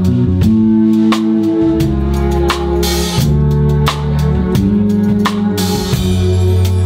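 Band music: a drum kit keeping a steady beat over sustained bass and chord notes, with two cymbal washes about three and six seconds in.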